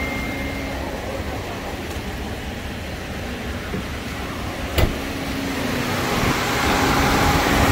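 Car engine running with the AC system on, a steady hum and noise. A single sharp click comes about five seconds in.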